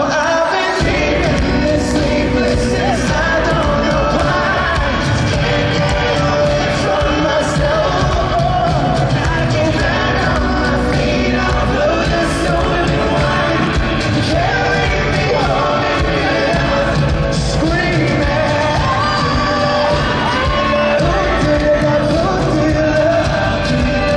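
Pop-rock band playing live in an arena, heard from the audience: sung lead vocals over electric guitars and drums, with the crowd shouting along and the hall's echo.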